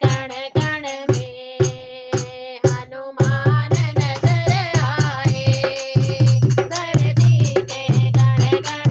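Hindi devotional bhajan music with a fast, steady percussion beat under a held melodic line; a heavier bass beat joins about three seconds in.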